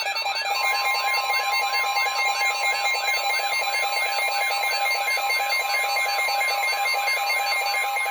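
Weather alert radio's electronic alarm warbling up and down about three times a second, with a steady high tone joining about half a second in. This is the alert that a new severe weather warning is about to be broadcast. The warble cuts off near the end.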